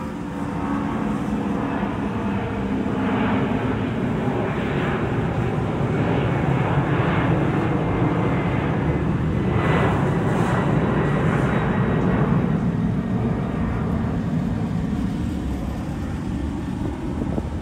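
A fixed-wing airplane flying overhead, its engine drone growing louder toward the middle and fading away near the end.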